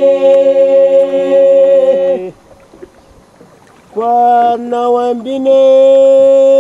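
A voice singing long held notes in a chant-like song, dropping out for nearly two seconds in the middle before the singing resumes.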